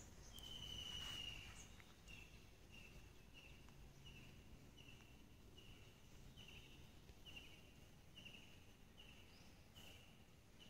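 Faint, repeated high chirping call from a small animal, about three short chirps every two seconds, after one longer drawn-out note near the start, over a quiet low background hum.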